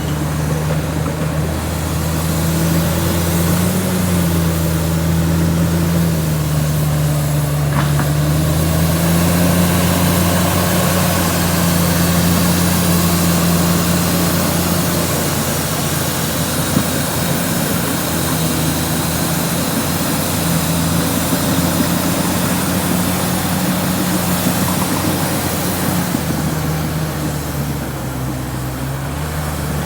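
Komatsu D68ESS bulldozer's diesel engine running continuously while it works, its engine speed dipping and rising slightly a few times.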